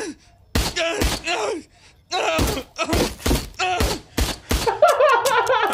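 A rapid volley of pistol shots from an animated cartoon's soundtrack, about eight sharp cracks spaced roughly half a second apart, with a man's pained groans and cries between them.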